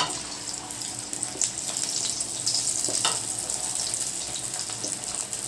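Potato-semolina fingers deep-frying in hot oil in a kadai: a steady sizzle from the bubbling oil, with a few light clicks.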